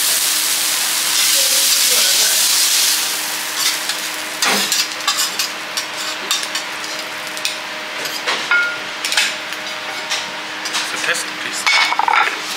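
Diced wagyu beef sizzling on a hot steel teppanyaki griddle, loudest for the first three seconds. After that, metal spatula, knife and fork give many short sharp clicks and taps against the steel plate as the cubes are turned and gathered.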